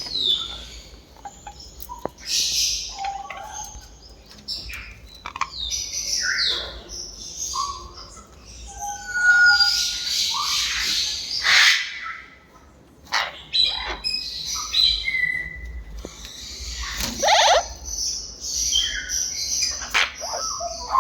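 Amazon parrot calling: a string of short harsh squawks and chirps mixed with a few brief clear whistles, with short pauses between, loudest in a longer squawking stretch about halfway through.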